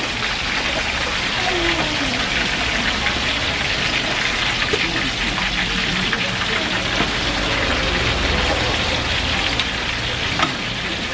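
Hot oil sizzling and crackling steadily as battered food deep-fries in a large wok.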